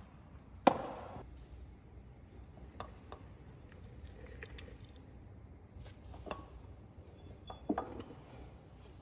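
Scattered metallic clinks and knocks of hand tools and bolts while the engine pulley's bolts are worked on; the loudest is a single sharp clank with a short ring about a second in.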